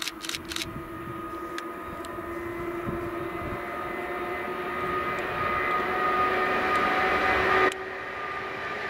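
EU160 Griffin electric locomotive hauling an express passenger train past at speed. Its traction equipment whines in several steady tones that grow louder as it approaches, then drop off suddenly near the end as the locomotive goes by, leaving the rumble of the coaches.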